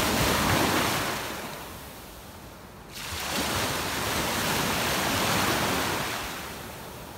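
Small sea waves washing in on the beach in two swells: one at the start that eases off, and a second that rises suddenly about three seconds in and fades toward the end.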